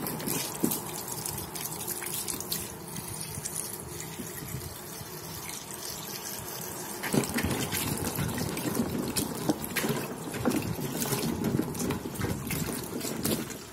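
Tap water running into a plastic basin of cut corn cobs and coconut pieces, splashing as a hand stirs and rinses them. The water gets louder about halfway through.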